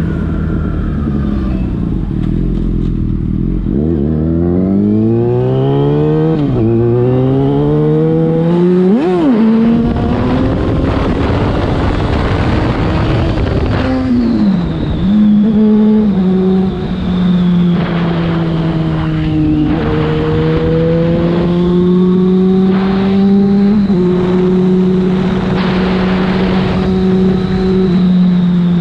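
Yamaha FZ6's inline-four engine through a Leovince aftermarket exhaust, revving up hard with quick drops in pitch at upshifts about 6.5 and 9 seconds in. It eases off briefly halfway through, then runs at fairly steady revs.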